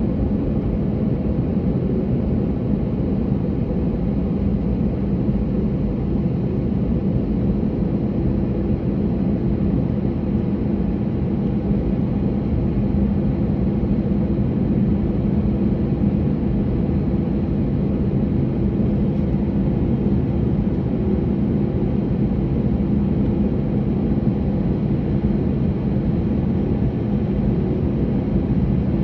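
Steady jet-engine hum and rumble of an Airbus A321, heard from inside the cabin as the plane taxis, with a low drone that holds an even pitch and level.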